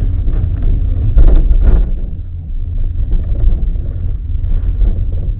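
Steady low rumble inside a moving cable-car gondola cabin, swelling louder for a moment about a second in.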